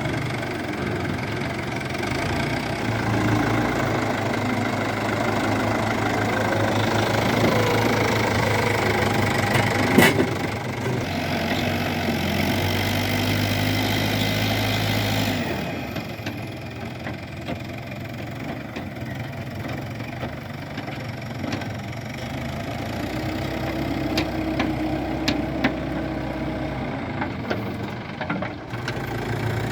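Diesel engines of a backhoe loader and a farm tractor running steadily, with a single sharp clank about ten seconds in. About halfway through, the engine sound drops and changes abruptly.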